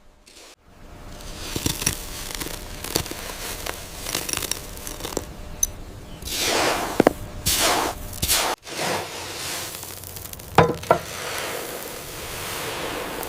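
Dry sand being scooped and poured by hand: a gritty hiss with small scrapes and clicks, swelling into louder pouring rushes around the middle. It breaks off suddenly partway through, and a couple of sharp clinks follow.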